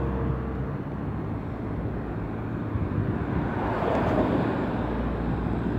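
Steady road-traffic noise with wind on the microphone, swelling about four seconds in.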